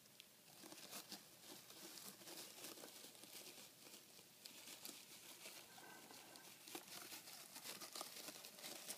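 Faint rustling and crackling of wood-shaving bedding as a hedgehog rummages and pushes through it, a quick irregular run of small crackles that starts just after the beginning.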